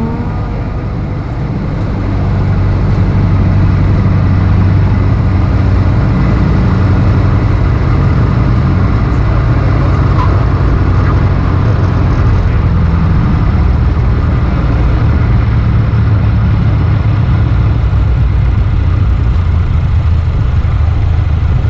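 The flat-four engine of a 1949 Aeronca Champ 7CCM, heard from inside the cabin. Its drone grows louder about two seconds in as the throttle comes up, then runs steadily at high power.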